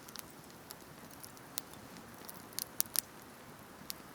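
Wood campfire crackling: a soft steady hiss with irregular sharp pops, a few louder ones close together a little before three seconds in.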